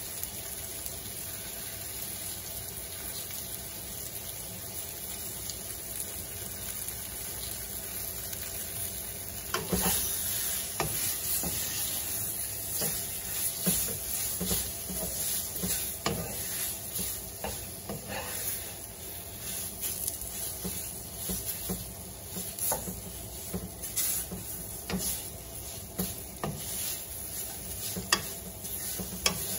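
Coated shrimp sizzling in a hot nonstick pan. About a third of the way in, a wooden spatula starts stirring and turning them, adding irregular scrapes and knocks against the pan over the sizzle.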